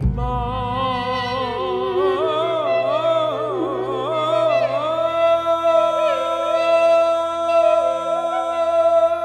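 Background music: a solo voice singing a slow, ornamented melody with long held notes over a steady low drone, coming in suddenly.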